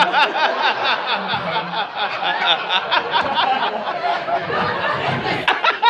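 A roomful of people laughing and chuckling together at a joke, many voices overlapping.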